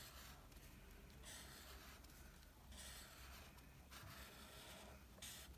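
Faint scratching of a felt-tip marker coloring on paper: several short back-and-forth strokes, each lasting under a second.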